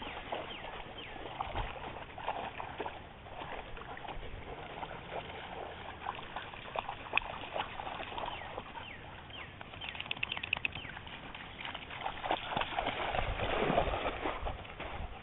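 A dog wading through shallow creek water, its legs splashing, loudest near the end.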